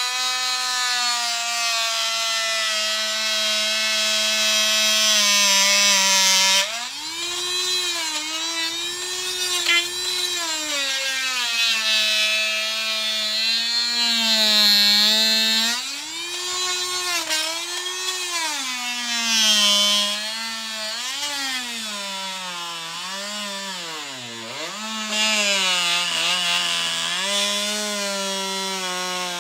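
Corded oscillating saw cutting through a deer's skull bone to remove the antlers. Its motor gives a continuous whine, steady for the first few seconds, then repeatedly dipping and rising in pitch as the blade bears into the bone.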